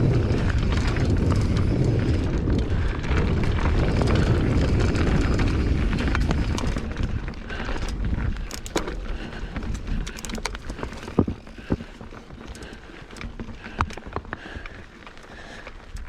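Wind buffeting the microphone and tyres rumbling over the trail on a moving mountain bike. It is loud for about the first seven seconds, then eases off into quieter rolling with scattered sharp clicks and knocks as the bike rattles over the ground.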